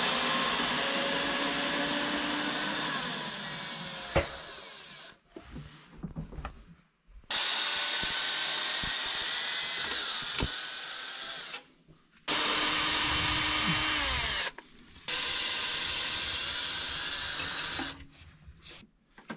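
Ryobi cordless drill-driver driving screws into wood, running in four runs of a few seconds each with short pauses between them. A few small knocks fall in the pauses.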